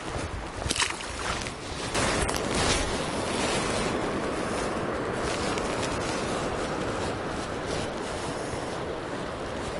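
River water rushing steadily over a rocky riffle, rising to a full rush about two seconds in. Before that there are a few brushing footsteps through grass.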